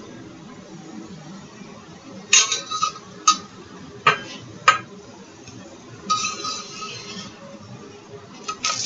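A utensil clinking against a frying pan while the flatbread cooks. Several sharp clinks ring briefly, starting about two seconds in and spaced half a second to a second apart. A longer scrape comes about six seconds in, and more clinks follow near the end.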